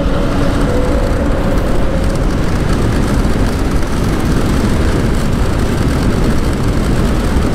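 Steady wind rush on the microphone from riding an Ola S1 Pro Gen 2 electric scooter at full throttle at about 90–95 km/h.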